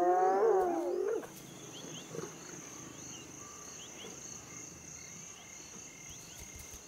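A spotted hyena's pitched call, rising and then falling, ending about a second in. Then a steady high insect trill with faint chirps.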